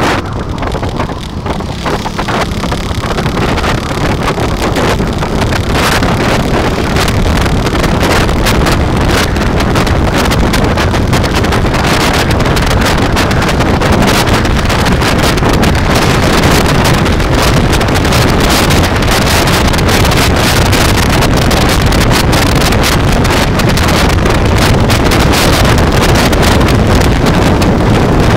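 Heavy wind buffeting on the microphone of a moving motorcycle, with the motorcycle running beneath it. The noise dips briefly about a second in, then holds steady and loud.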